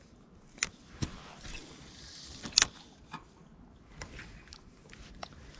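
A few sharp, scattered clicks and light handling noise from a spinning rod and reel being worked during a cast, the loudest click about two and a half seconds in.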